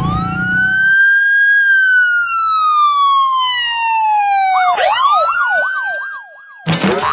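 Police siren sound effect: one long wail that rises and then falls slowly, switching about halfway through to rapid up-and-down yelp sweeps. At the very start, the tail of a passing train's horn and rumble cuts off about a second in.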